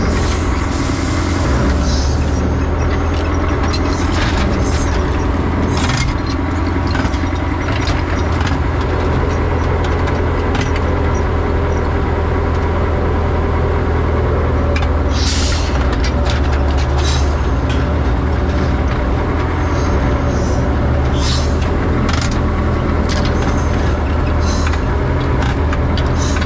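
Dragline excavator's engine running steadily under load, heard from inside its rattling cab as the machine swings and works its bucket. Several short hisses and clanks break in over the drone, near the start, around the middle and toward the end.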